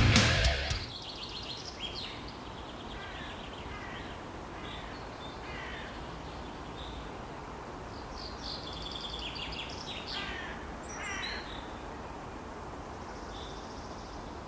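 Crows cawing several times over a steady outdoor background hum. A burst of heavy-metal music cuts off within the first second.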